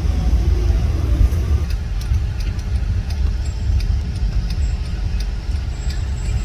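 Steady low rumble of a car driving in traffic, heard from inside the car.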